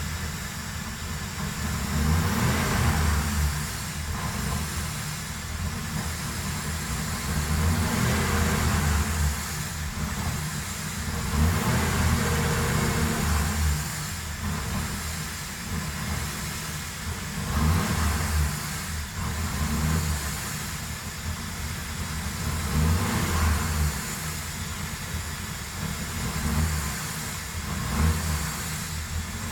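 2007 Ford Crown Victoria's 4.6-litre V8 running, swelling and easing off again and again as it is revved.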